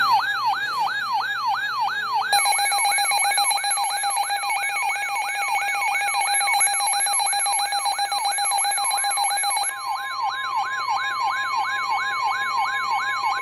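Electronic emergency alert tones: a rapid siren yelp falling in pitch about three times a second, layered with steady electronic tones. About ten seconds in, a steady single tone joins: the weather radio warning alarm tone that precedes a warning broadcast.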